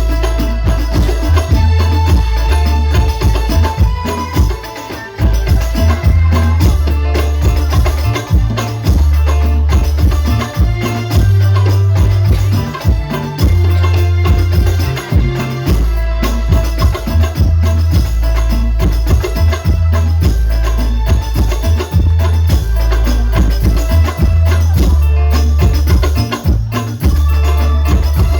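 Sholawat devotional music played loudly through a sound system during a sound check: hand drums beating over very heavy, booming bass, with held melodic tones above.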